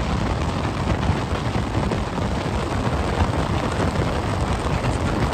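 Steady rushing wind and road noise of a vehicle in motion.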